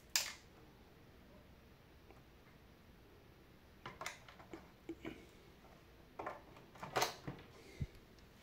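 Light clicks and knocks of pliers and hands handling the plastic housing and parts of a De'Longhi Special.T capsule machine. There is a sharp click just after the start and scattered knocks from about four seconds on, the loudest about seven seconds in. Between them there is only quiet room tone.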